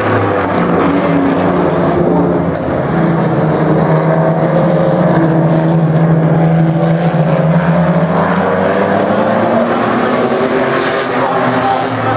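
A pack of V6 modified race cars lapping together at speed, several engines running hard at once with overlapping notes that rise and fall in pitch through the bends.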